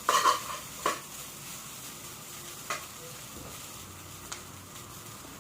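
Spatula stirring and scraping fried rice in a hot pan that is not non-stick, kept moving so the rice does not stick; a quick run of scrapes in the first second, then single scrapes now and then, over a steady sizzle.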